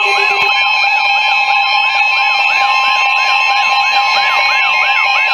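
Electronic siren: a short rising whoop repeating about three times a second, layered over several steady alarm tones.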